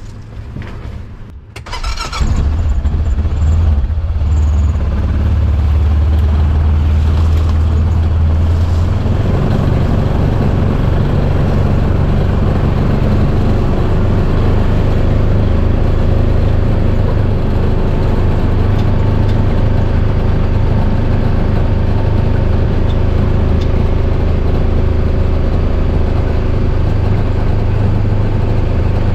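A heavy machine's engine starts about two seconds in and then runs loud and steady, its low note shifting about nine seconds in.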